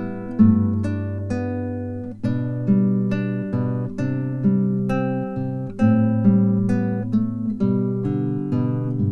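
Background music: acoustic guitar playing a slow piece of plucked and strummed notes over changing bass notes.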